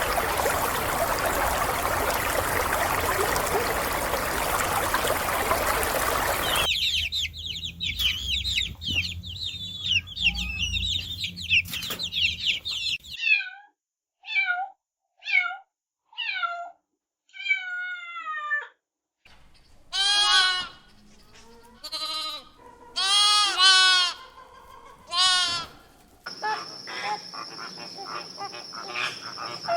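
A string of different animal calls cut one after another. First comes about six seconds of a loud noisy rush. Then a flurry of high chirping calls, about six separate falling cries with pauses between them, several longer cries with a clear pitch, and near the end a steady high tone with fast ticking.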